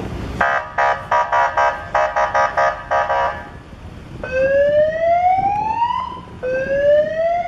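Electronic emergency-vehicle siren: a tone pulsing about three times a second, then changing to rising wail sweeps that climb and drop back, twice.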